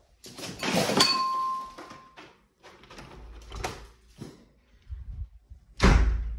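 Glazed balcony door being unlatched and pushed open: a sharp click with a short ringing tone about a second in, several softer knocks, then a loud low rush near the end.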